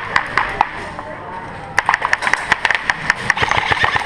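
Airsoft guns firing: scattered, irregular sharp shots, dense in the second half after a brief lull.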